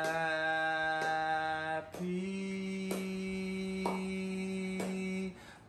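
A man singing unaccompanied, drawing out a birthday song in two long held notes, the second a little higher, breaking off near the end. Faint ticks sound about once a second under the singing.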